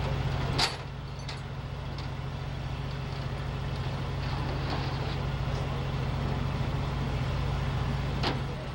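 Heavy vehicle engine idling steadily, with a sharp click about half a second in and another near the end.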